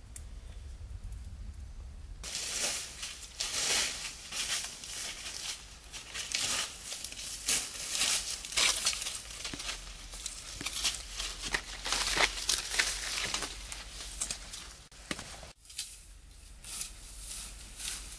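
Rustling and crunching of dry grass and leaf litter underfoot and against legs as people walk through brush, in irregular crackles that start suddenly about two seconds in and stop abruptly near the end.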